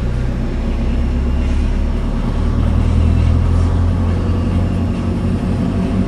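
Steady low rumble of a vehicle's engine and road noise, heard from inside the moving vehicle.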